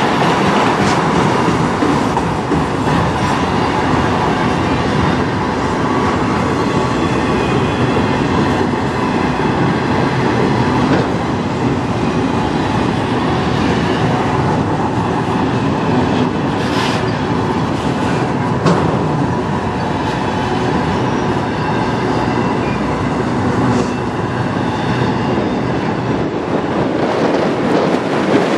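Autorack freight cars rolling past close by: a steady rumble and rattle of steel wheels on rail, with a few short sharp clicks in the middle.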